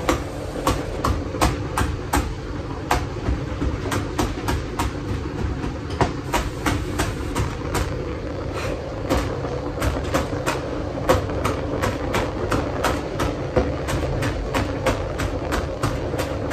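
Kitchen knife finely chopping onion, coriander and green chillies by hand on a cutting board: quick, uneven knocks about three or four a second, over a steady low hum.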